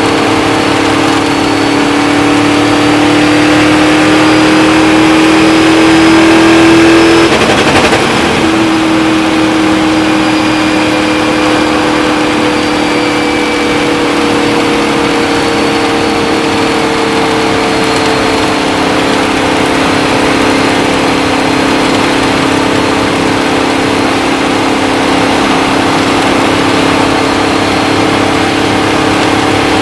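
Indy-style open-wheel race car engine running at high speed on an oval, recorded on board with wind noise over the engine. The engine note climbs steadily for about seven seconds, breaks briefly, then holds a slightly lower pitch that eases slowly down.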